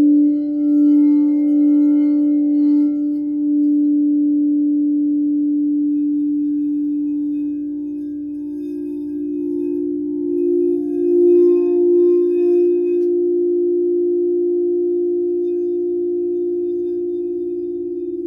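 Frosted quartz crystal singing bowls ringing with sustained, steady tones. One low tone holds throughout, and a second, slightly higher bowl tone joins about halfway through, the two sounding together.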